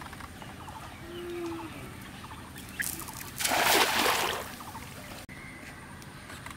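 A cast net landing flat on a pond's surface: a single rushing splash as the spread net hits the water, lasting about a second, a little past the middle.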